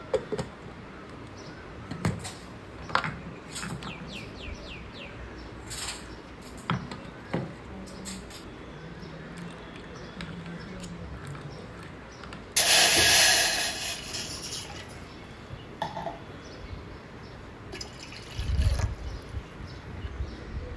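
Kitchen handling sounds: scattered clicks and knocks of a mixer lid, spoon and bowl, and just past halfway a loud rush of running water for about two seconds.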